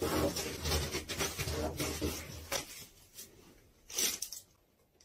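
Scratchy rubbing and crinkling from a cat grabbing at a small drink carton and biting its plastic straw. The noise is dense for the first two and a half seconds, with one short louder scrape about four seconds in.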